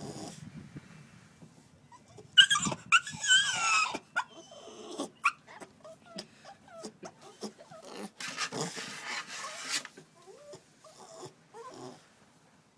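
Staffordshire bull terrier puppy crying to be let back in: high, wavering whines, loudest about two to four seconds in, followed by shorter, softer whimpers.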